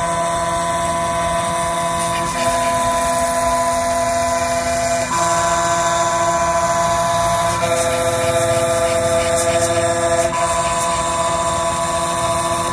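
Small CNC milling machine cutting down a phone IC chip on a 0.7 mm rough pass. It runs steadily, and its motor whine jumps to a new pitch every two to three seconds.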